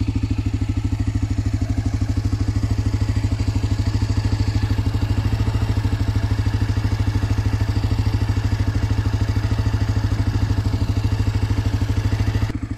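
Honda NX250 Dominator's single-cylinder four-stroke engine idling steadily with an even, regular beat.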